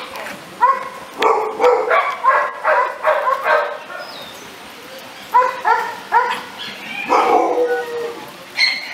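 American Staffordshire Terrier barking in quick runs of short barks, about two or three a second, breaking off for about a second around the middle.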